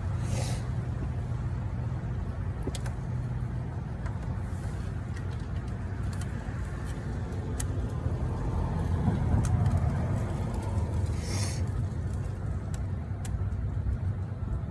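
A motor vehicle engine running steadily, swelling a little about nine seconds in, with scattered light clicks.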